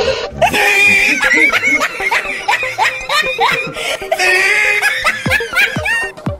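Laughter sound effect dubbed over the footage: a voice laughing in quick repeated bursts, with a run of short falling-pitch sounds near the end.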